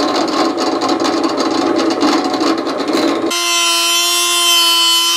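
A thin drill bit grinding through a fiberglass-wrapped rocket body tube, a gritty chattering noise; about three seconds in it gives way abruptly to the steady high whine of a Dremel rotary tool with a diamond cutting wheel slicing the fin slot, its pitch rising slightly near the end.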